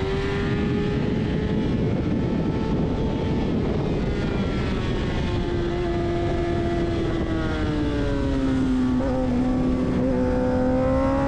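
Motorcycle engine running steadily at high revs over a continuous rush of wind and road noise. The engine note sags slowly about eight seconds in, then climbs again near the end.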